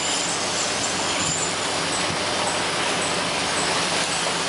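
Steady mechanical drone with a broad, even hiss and a low hum, the sound of a fishing boat's engines and machinery running.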